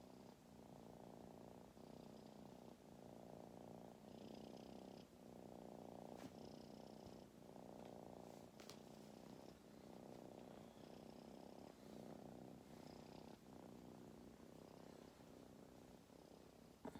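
Tabby kitten purring, a low steady purr that swells and dips about once a second with her breathing.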